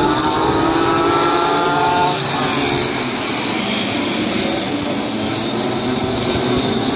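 A pack of speedway go-karts racing past together, their engines rising in pitch as they accelerate over the first two seconds, then running on as a dense steady drone.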